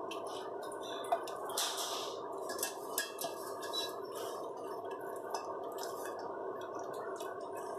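Boiled Brussels sprouts being scooped from a steel pan of water with a plastic slotted spoon: the spoon knocks and scrapes against the pan, water drips and splashes back, and sprouts drop into a ceramic bowl, with a short splash about a second and a half in.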